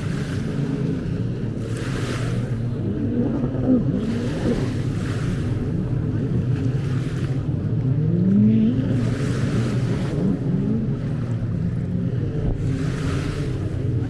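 Sea waves washing onto the beach every three to four seconds, over the drone of boat engines whose pitch rises and falls, with one engine revving up about eight seconds in.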